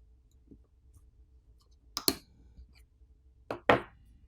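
Small phone parts and tools being handled during disassembly: two sharp double clicks, about a second and a half apart.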